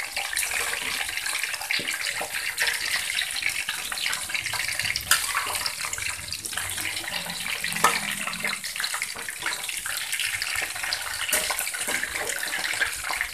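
Shrimp and vegetable fritters (bakwan udang) deep-frying in hot oil in a hammered metal wok: a steady, dense sizzle and crackle, with a few louder clicks.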